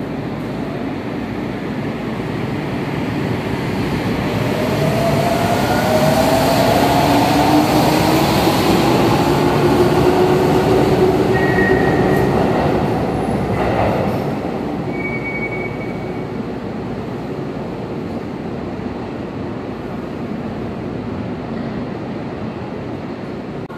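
Sendai Subway Namboku Line 1000-series train pulling out and accelerating past. The traction motors' whine rises steadily in pitch as it gathers speed and is loudest as the cars go by, with a few brief high squeals midway. The sound then fades as the train leaves.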